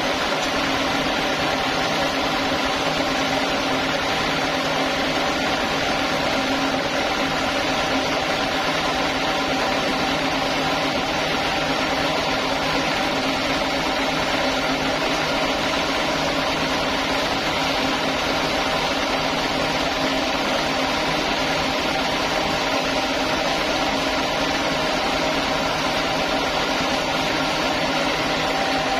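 Band sawmill running steadily: a continuous machine hum with a few steady tones and an even level throughout.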